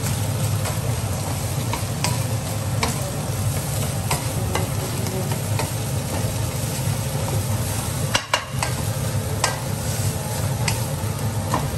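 Ground meat sizzling in a nonstick wok as a wooden spatula stirs and scrapes it, with sharp taps of the spatula against the pan every second or so. A steady low hum runs underneath.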